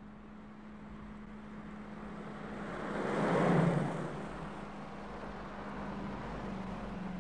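A car passing by at speed: its road noise builds to a peak about three and a half seconds in, then fades. A steady low hum runs underneath.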